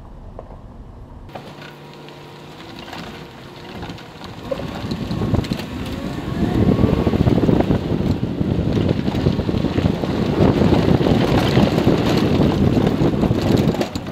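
Pickup truck driving slowly while towing a portable sawmill. The engine runs steadily at first, then the rumble and rattle of the rig rolling over a gravel lane grows much louder from about six seconds in, with wind buffeting the microphone.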